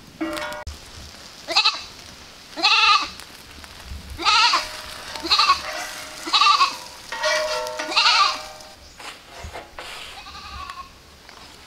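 A goat bleating repeatedly: about seven short calls a second or so apart, the last one fainter.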